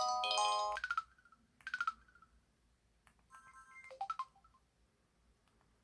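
Samsung Anycall Ultra Edition (SPH-V9000) mobile phone playing short electronic ringtone and effect sounds through its speaker. A bright synthetic chord comes first, then a brief chime, then a few beeping notes that end in a falling glide.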